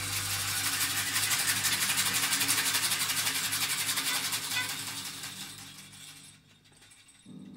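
A free-improvising ensemble making a dense, rapid rattling and scraping noise texture that swells and then fades away about six seconds in. Near the end a single low pitched note sounds.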